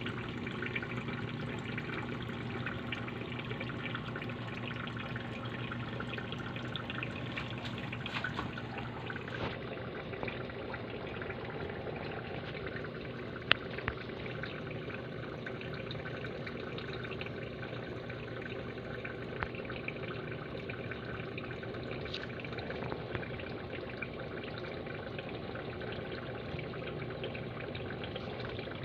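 Water trickling and bubbling steadily in an aquarium over a low steady hum, with many faint ticks. A single sharp click comes about halfway through.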